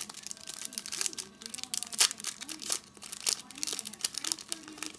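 A trading-card pack's shiny wrapper being torn open and crinkled by hand: a run of sharp crackles, the loudest tear about two seconds in.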